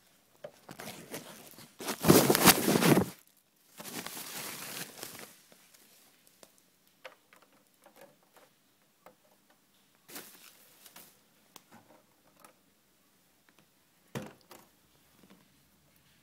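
Handling noise: rustling and rubbing of packaging or hands against the unit and camera, loudest for about a second near the start, with a fainter stretch after it and scattered light clicks and a knock near the end.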